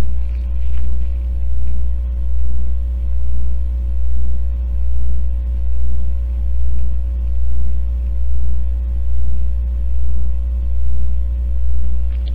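Loud steady electrical hum, low-pitched with a fainter higher tone over it, swelling and fading in an even pulse a little more than once a second.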